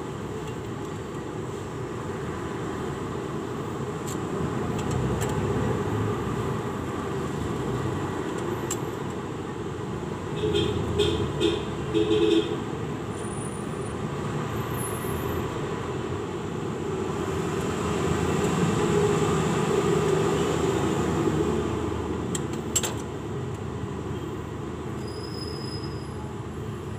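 Steady low mechanical rumble, like an engine or heavy vehicle running nearby. About ten to twelve seconds in come four short louder sounds, and a single sharp click follows near the end.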